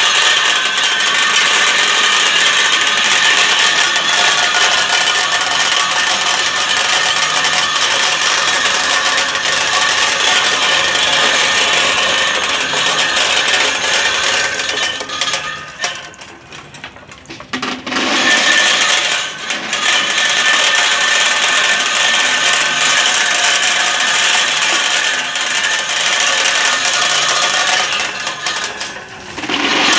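Candlenut-cracking machine running: a steady mechanical whine over dense rattling and clattering as the nuts are cracked and the shells and kernels tumble out. The noise dips briefly a few times, most clearly around the middle.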